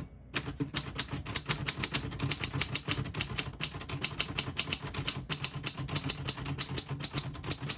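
1940 Corona Comet portable typewriter being typed on: a quick, steady run of sharp key strikes, about five or six a second.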